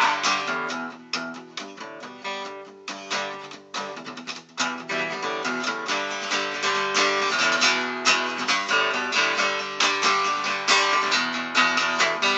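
Acoustic guitar strummed in a steady rhythm as an instrumental break in a song, with no singing. The playing is softer for the first few seconds and grows louder from about four and a half seconds in.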